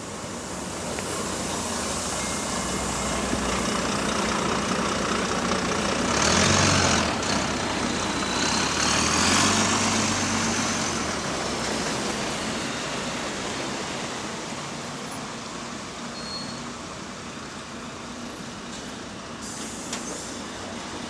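Bus diesel engine pulling away under load. It grows louder over the first few seconds, pulls hardest about six to ten seconds in, then eases off. The bus has a slight exhaust leak.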